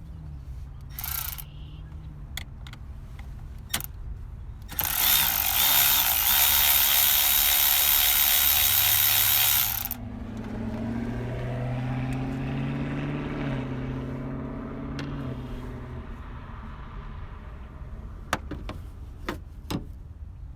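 Socket ratchet wrench clicking rapidly for about five seconds as a 13 mm nut is turned on the battery's fusible link, between scattered clicks and knocks of tools on metal. A low, wavering hum follows and fades away.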